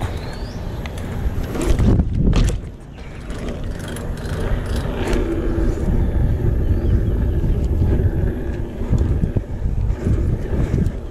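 BMX bike rolling over hard ground, a steady low rumble from the tyres, with a few sharp knocks about two seconds in.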